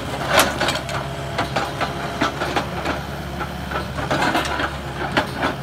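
Engine of demolition machinery running steadily, with scattered knocks and crunches of debris being broken, the sharpest about half a second in and again near the end.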